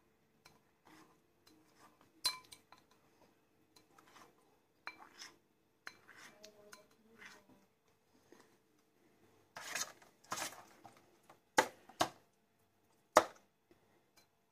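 A knife scraping around the inside of a ceramic bowl and tapping against it to loosen set jelly, with scattered light clinks, two longer scrapes about ten seconds in, then three sharp knocks near the end.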